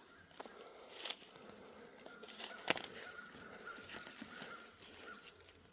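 Quiet woodland ambience: a steady high insect drone, with a few sharp snaps of twigs underfoot, the loudest about two and a half seconds in.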